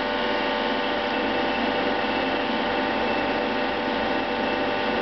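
Hydraulic pump of a Baldwin compression testing machine running with a steady, many-toned hum as the load is released and the platen backs off a crushed flashlight.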